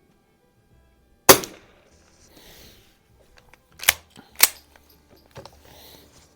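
Remington Model 12-C pump-action .22 rifle firing one standard-velocity shot about a second in, with a short echo. About two and a half seconds later come two sharp clacks half a second apart, the pump being cycled to chamber the next round, then a fainter click.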